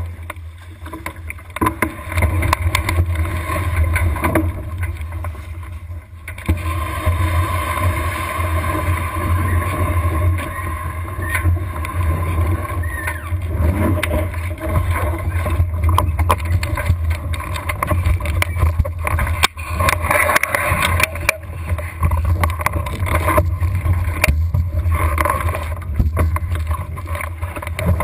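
Wind buffeting the microphone of a camera mounted low on a small sailing catamaran's hull, with water rushing along the hull and frequent knocks and splashes as it sails.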